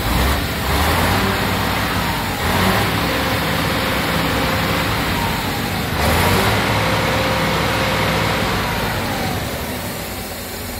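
Volvo F12 400 truck's straight-six diesel engine running near idle, swelling in level briefly a few times.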